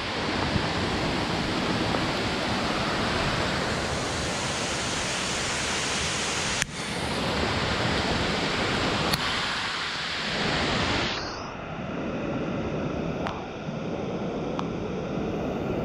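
Waterfall rushing: a loud, steady roar of falling water with two abrupt breaks, turning duller from about eleven seconds in.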